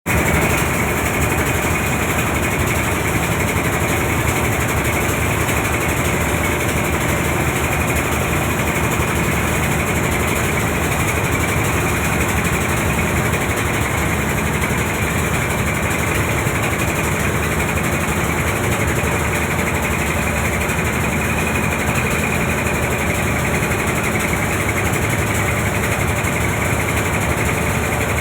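Boat engine running steadily, an unbroken drone with broad hiss over it and no change in pace.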